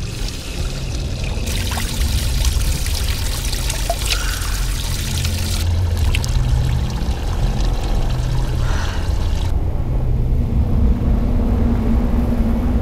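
Outdoor wind on the microphone: a heavy low rumble with hiss that shifts abruptly a few times. A steady low hum joins it about ten seconds in.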